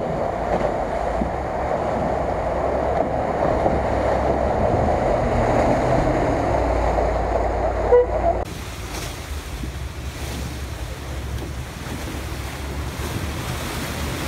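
Land Rover Discovery driving through deep mud and water, its engine running low under the slosh and splash of the tyres churning through the flooded rut, with wind noise on the microphone. The sound drops suddenly and turns thinner and quieter about two-thirds of the way through.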